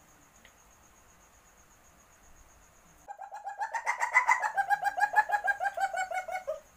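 Asian palm civet in heat giving its mating call: a rapid series of pitched pulses, about eight a second, that starts suddenly about three seconds in, rises a little in pitch, then holds and stops abruptly after about three and a half seconds. Before it there is only a faint, steady, high insect-like tone.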